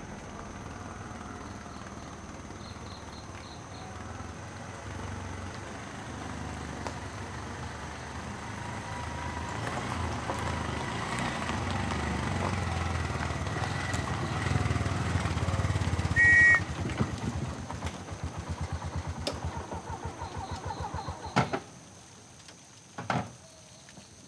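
Auto rickshaw's small engine running as it approaches, growing louder, with a short horn beep about two-thirds of the way in. The engine then idles with a regular beat and cuts off suddenly with a click, followed by a single knock.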